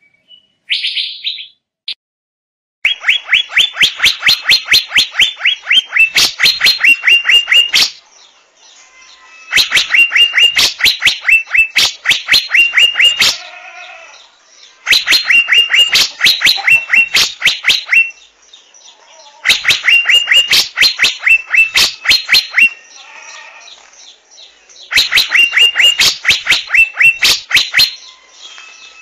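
Asian fairy-bluebird (Irena puella) calling: five bursts, each a rapid run of sharp, ringing notes lasting a few seconds, each followed by a softer, lower call. The bursts repeat at an even spacing of about five seconds.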